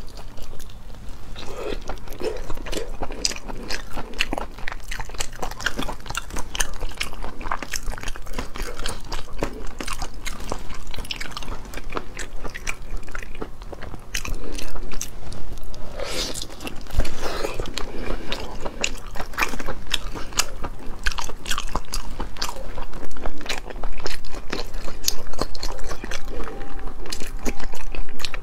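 Close-miked eating of a whole cooked octopus full of roe: a dense run of wet bites, crunches and chewing smacks, getting louder from about halfway through.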